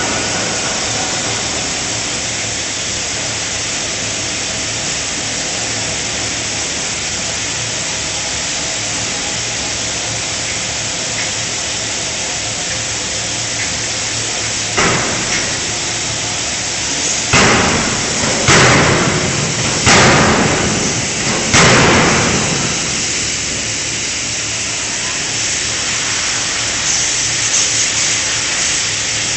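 A 5-ton electro-hydraulic closed-die forging hammer strikes a forging: one light blow about halfway through, then four heavy blows about a second and a half apart, each ringing briefly. A steady shop hiss and hum run underneath.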